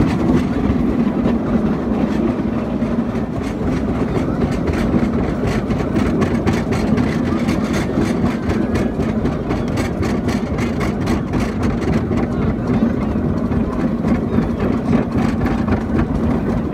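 Miniature park train running, heard from an open carriage: a steady engine drone with wheel rumble and frequent clicks from the track.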